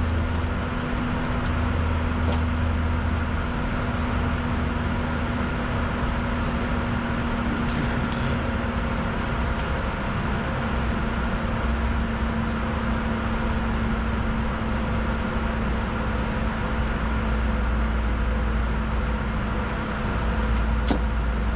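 Steady in-flight cockpit noise of a Bombardier Challenger 605 business jet: an even rush of airflow and engine drone with a low rumble and several steady hums. A few faint clicks sound over it.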